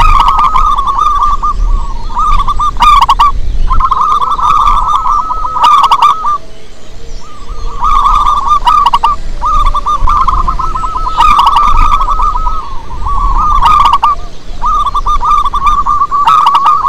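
Zebra dove (perkutut) cooing in rapid, rolling trilled phrases of one to three seconds each, repeated with short breaks and a longer pause about six seconds in.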